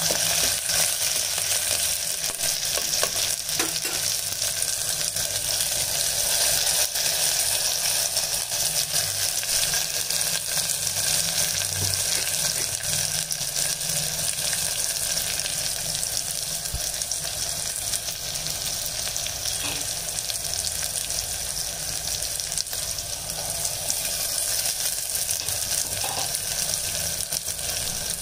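Hot oil sizzling steadily in a clay pot around ground onion-tomato paste just poured onto fried mustard seeds, garlic and curry leaves for a fish curry base.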